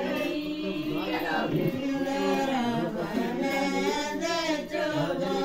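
Several voices singing together, with long held notes overlapping one another.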